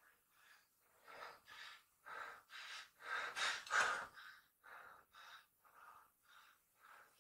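A man panting hard, out of breath: short gasping breaths about two a second, loudest a little past the middle and easing off towards the end.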